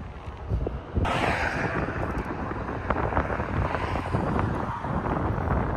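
Wind buffeting the microphone, a steady low rumble, with a rushing hiss that comes in suddenly about a second in and holds.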